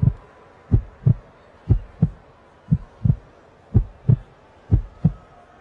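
Heartbeat sound effect: pairs of low thumps, lub-dub, repeating steadily about once a second.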